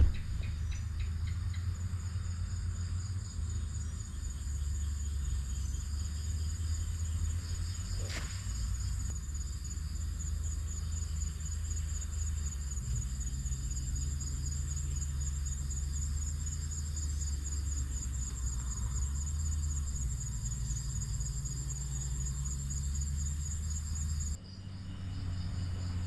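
Insects trilling steadily in a high, fast-pulsing night chorus over a low rumble; both stop abruptly near the end.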